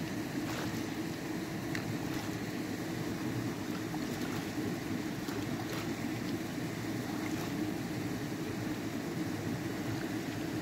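A steady low rushing noise, with a few faint short clicks scattered through it.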